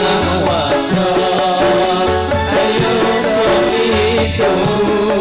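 Live sholawat band playing: an electronic keyboard melody over hand drums, with a fast steady jingling percussion beat and a low bass note about every two seconds. The music is continuous and loud, played through the PA.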